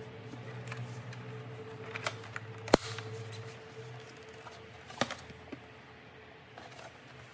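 Handling noise from a plastic projector housing and its removable dust filter: rubbing with a few sharp clicks and knocks, the loudest a little under three seconds in and another about five seconds in. A low steady hum underneath fades out about halfway.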